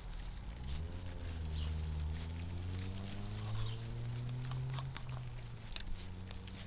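German Shorthaired Pointer puppies lapping and smacking at their wet food, a string of small wet clicks. A low engine hum rises in pitch about a second in and fades out after about five seconds, and is louder than the lapping.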